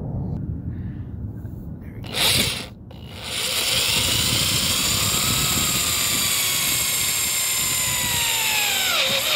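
Cordless drill driving a self-tapping roof screw through a metal roof plate: a short blip of the motor about two seconds in, then a steady whine from about three seconds in that slowly sinks in pitch and drops off sharply near the end.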